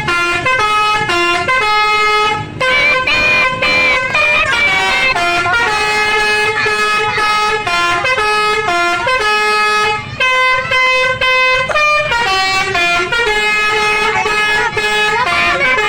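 Bus 'telolet' basuri musical air horn playing a tune, one held note after another, with short breaks about two and a half and ten seconds in.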